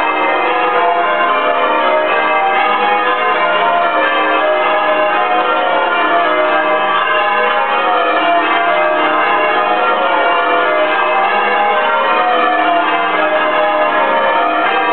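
Change ringing on a ring of eight church bells, tenor 21-0-1 in E flat, with unusually heavy Purdue trebles. The bells strike one after another in a continuous run of spliced Surprise Major, their tones overlapping in a steady unbroken stream.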